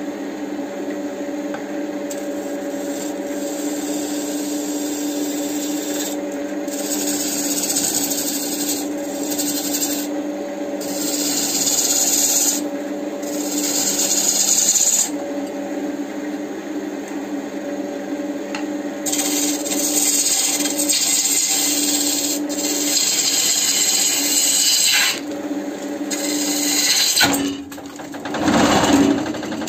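Wood lathe running with a steady motor hum while a turning tool cuts into the spinning wood blank, the cuts coming as stretches of loud hissing shaving noise that start and stop every few seconds.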